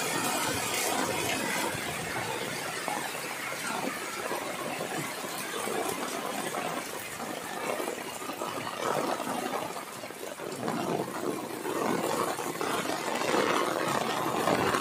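Heavy rain pouring down steadily, splashing on a wet concrete rooftop terrace.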